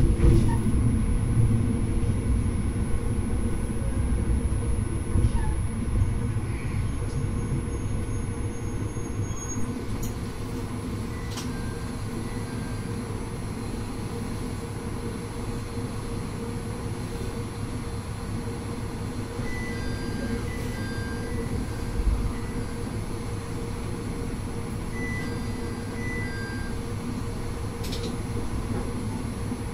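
Tsugaru Railway diesel railcar running along the line, heard from inside the cab: a steady engine drone with wheel and rail noise, getting quieter over the first third. A single low thump about three-quarters of the way in.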